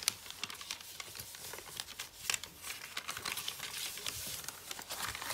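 A sheet of paper being folded and creased by hand: crinkling and rustling, with many short, sharp crackles.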